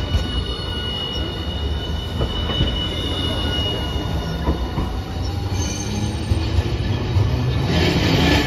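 Hiroden Green Mover LEX low-floor tram passing close on curved track: wheel-and-rail rumble with a thin, high steady wheel squeal in the first half. Near the end the rumble grows louder as the next tram comes on.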